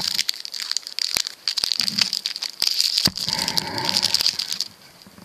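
Foil booster-pack wrapper crinkling in the hands as it is torn open; the crinkling stops near the end.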